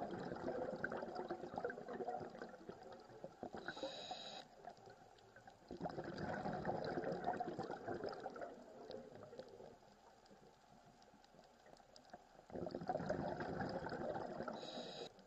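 Scuba diver breathing through a regulator underwater: three long bubbling exhalations a few seconds apart, with a short high hiss from the regulator twice, about four seconds in and near the end.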